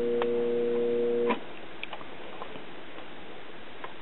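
Freshly oiled direct-drive phonograph motor of a circa 1939 GE wireless record player running with a steady, quiet hum. It is switched off with a click about a second in and then coasts down, leaving only a few faint ticks.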